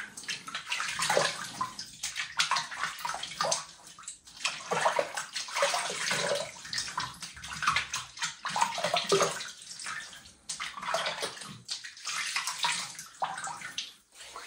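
Water splashing in irregular bursts as a face is rinsed with hands at a sink, after washing with a shampoo bar.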